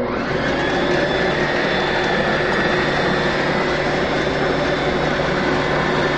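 Electric stand mixer switched on and running at a steady speed, its motor whirring as it beats eggs into creamed butter and sugar.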